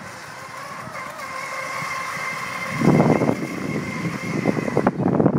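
Electric motor of a small RC racing catamaran running flat out across the water with a steady high whine that stops shortly before the end. Wind buffets the microphone from about three seconds in, louder than the whine.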